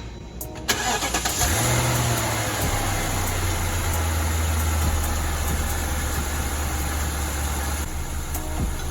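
BMW 750Li's 4.8-litre V8 starting: it cranks and catches about a second in, flares briefly, then settles into a steady idle with a broad rush of air alongside. This is the post-repair start to check the new cooling fan.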